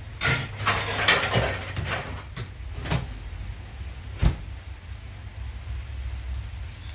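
Kitchenware clattering and knocking as a lid is fetched to cover the wok: a burst of rattles in the first two seconds, then a few single knocks, the sharpest about four seconds in, over a steady low rumble.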